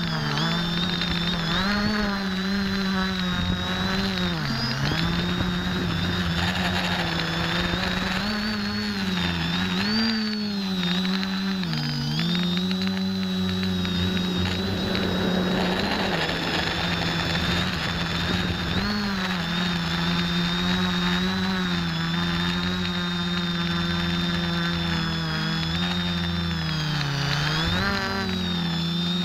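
X550AIOP quadcopter's motors and propellers whining, heard from the camera on the craft itself. The pitch dips and climbs back several times as the throttle changes.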